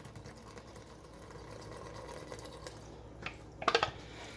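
Energy drink pouring out of a can in a steady splashing stream, with two brief knocks near the end.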